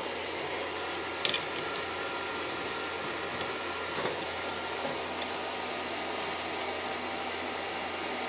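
Steady fan-like background noise, with a sharp click about a second in and a couple of fainter ticks later.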